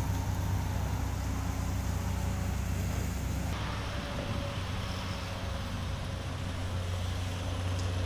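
Komatsu PC200 excavator's diesel engine running steadily under load as the machine digs and swings a bucket of broken asphalt.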